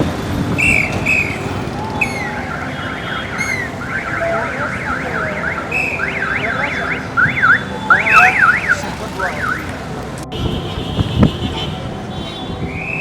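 Electronic car alarm sounding, cycling through its patterns: short chirps, then fast rising-and-falling warbling sweeps, over the steady noise of street traffic.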